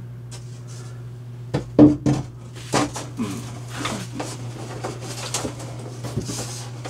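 A thin luan plywood template knocking and scraping against the hull and the compartment walls as it is worked into place by hand. It gives several sharp knocks a couple of seconds in, then rubbing and scuffing, over a steady low hum.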